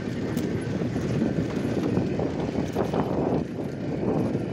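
Vehicle rattling and clattering irregularly as it jolts down a rough, rutted dirt track, with a steady rumble of road noise underneath.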